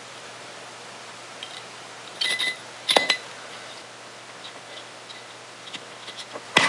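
A round metal candy tin being gripped and twisted open by hand: a few sharp clicks and scrapes of the tin halves, the loudest about three seconds in and another near the end.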